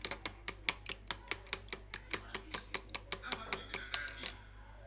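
Metal spoon beating raw eggs in a plastic tub, clicking against the tub's sides in a quick, even rhythm of about six strokes a second, which stops shortly before the end.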